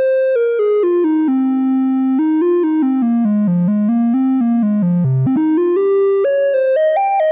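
Sequential Trigon 6 analog synthesizer playing its 'Mini Flute' preset: a single-note lead melody that steps down note by note to a low note about five seconds in, then climbs back up.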